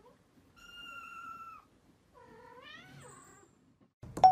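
A kitten mewing twice in thin high calls, the second rising in pitch. Right at the end a sharp bell-like ding strikes, louder than the mews.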